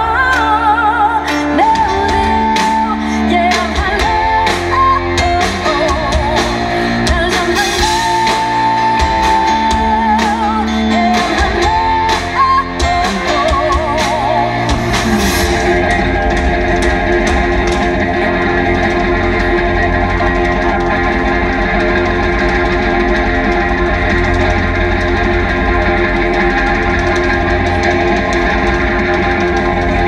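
Live pop-rock band playing: a female vocalist sings over keyboard, bass and drums, and about halfway through the singing stops and the band carries on instrumental with electric guitars.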